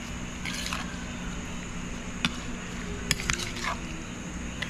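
Raw seasoned shrimp being mixed and handled in a bowl: soft wet handling noise with a sharp click about two seconds in and a few more clicks a second later, over a steady low hum.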